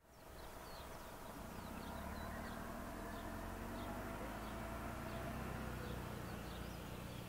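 Outdoor ambience fading in: small birds chirping again and again in short, separate calls over a low, steady rumble.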